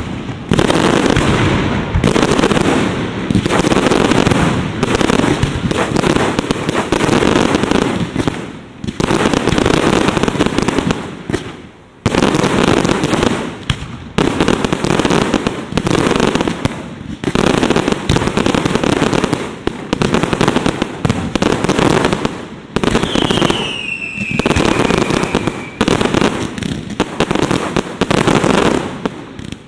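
Aerial fireworks shells bursting in quick succession: loud booms one after another with crackling between them, broken only by short lulls. About three-quarters of the way through, a whistle falls in pitch.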